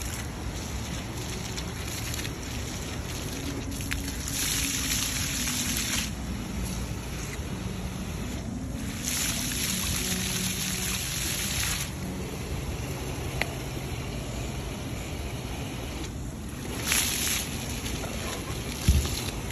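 Splash pad ground jets spraying water in spurts. The hiss comes on about four seconds in, again around nine seconds for a few seconds, and briefly near the end, over a low outdoor rumble, with a low thump just before the end.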